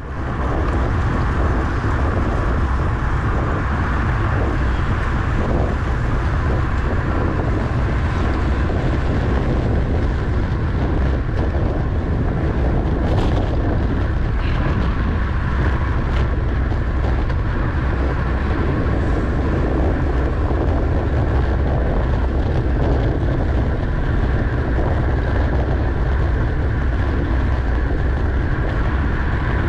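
Steady rushing wind buffeting the microphone of a camera riding on a racing bicycle at speed, with a rumble of road and tyre noise underneath. A few short clicks come about halfway through.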